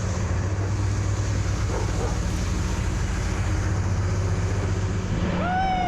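An engine running steadily at a low, even pitch. Near the end a short call rises and falls in pitch over it.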